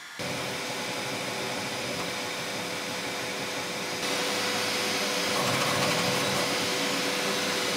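Bambu Lab P1S 3D printer running a print: a steady whir with a constant pitched hum underneath, getting louder about four seconds in.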